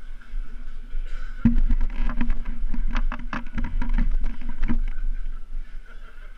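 A bobsleigh being moved along an iced start ramp, its runners scraping and clattering on the ice with a quick run of knocks and a low rumble for about three seconds, starting about a second and a half in.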